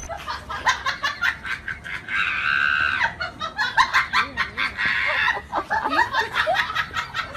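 People laughing in quick repeated bursts throughout, several voices at once.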